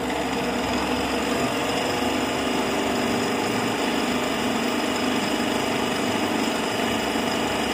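Belt-driven turbocharger balancing machine spinning a turbo rotor (compressor wheel and shaft), running steadily. The rotor is still out of balance on this run.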